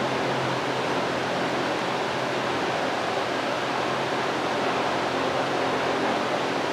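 Small cooling fan on top of a NEJE diode laser module running steadily through the laser's cool-off, a steady even hiss with a faint low hum.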